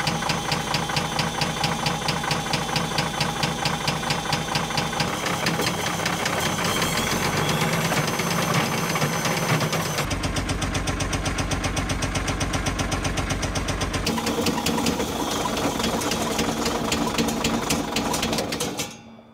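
Caterpillar 977L loader's 10.5-litre diesel running with a rapid, steady knock, despite good oil pressure, then stopping abruptly near the end.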